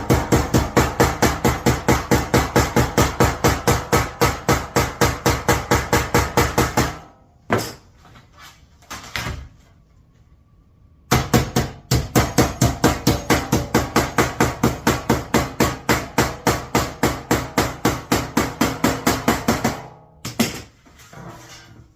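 A hammer striking sheet metal in rapid, even blows, about five a second, stopping for around four seconds midway with only a few stray knocks before the hammering resumes.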